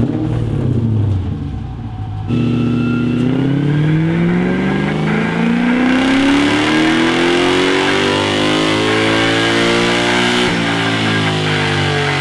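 Lexus 1UZ V8 in a Mazda B2200 pickup making a pull on a chassis dyno. After a couple of seconds of engine noise, the engine's pitch climbs steadily for about eight seconds, then drops suddenly near the end and carries on.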